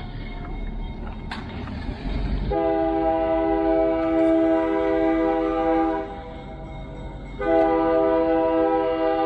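EMD GP9 diesel locomotive's multi-note air horn sounding two long blasts, the first about two and a half seconds in and the second starting about seven and a half seconds in, over the low rumble of the approaching engine. This is the opening of the horn signal for a road crossing ahead.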